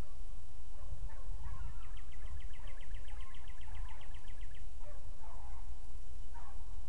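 A songbird's trill, a run of evenly spaced short notes at about six a second, lasting roughly three seconds. It sits over a steady low rumble of wind on the microphone.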